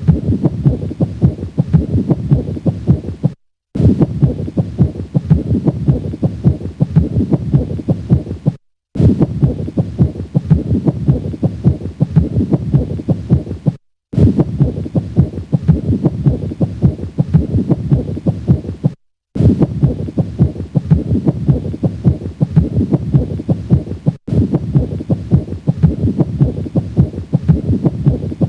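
Stethoscope recording of heart sounds at the cardiac apex with a pericardial friction rub, the sign of inflamed pericardium rubbing with each heartbeat. The same short clip repeats, broken by a brief silent gap about every five seconds.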